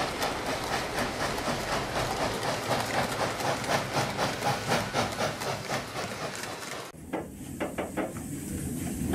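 Train sound effect of freight wagons rolling past, the wheels clacking over rail joints about three times a second. About seven seconds in it cuts off abruptly to a quieter, duller sound.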